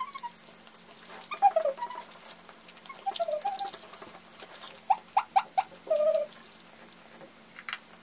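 Crunching bites and chewing of crispy-coated fried chicken, in several bursts, with a quick run of four sharp crunches about five seconds in.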